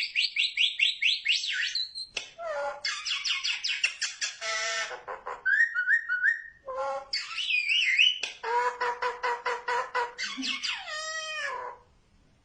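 Talking myna bird mimicking mobile phone ringtones: rapid runs of repeated electronic-like chirps and trills mixed with whistled up-and-down glides. The calls stop a little before the end.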